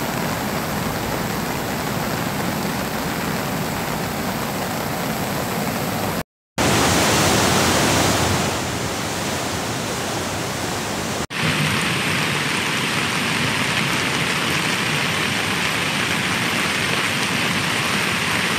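Steady rushing of a flooded, muddy river running in spate. The sound cuts out for a moment about six seconds in and turns to a brighter hiss at about eleven seconds.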